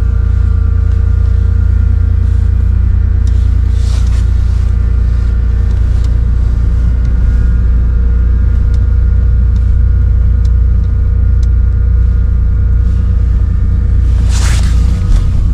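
A truck engine running steadily, with a heavy low rumble. A short hiss comes near the end.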